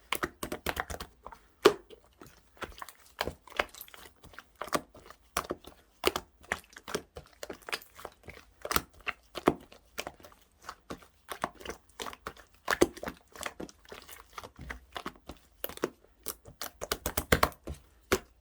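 Clear slime being squished and poked by hand, giving an irregular string of sticky pops and clicks.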